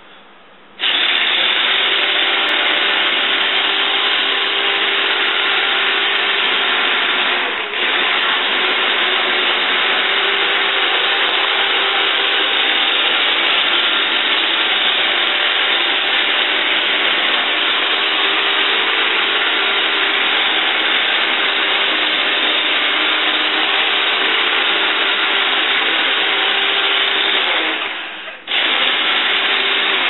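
iRobot Roomba 780 robot vacuum running: its suction motor and brushes make a loud, steady whir with a hum. It starts suddenly about a second in and dips briefly twice, once early and once near the end.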